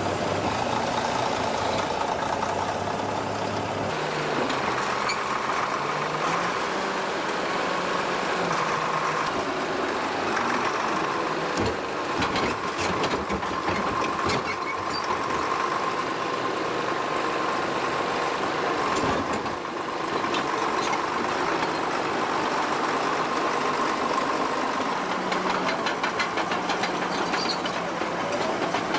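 Caterpillar D9G bulldozer's large diesel engine running steadily, with scattered short knocks.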